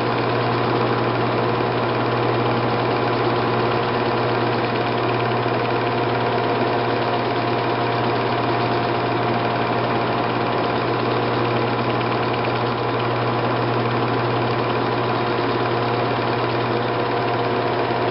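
Steady mechanical whirr and hum of a running film projector, an even drone with constant tones and no change.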